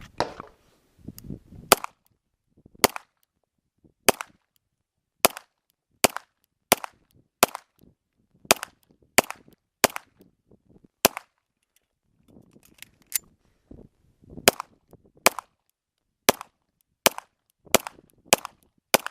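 Pistol shots fired one at a time, about twenty of them, mostly half a second to a second apart, during a timed defensive pistol stage. A longer pause near the middle is filled with fainter rustling and handling noise.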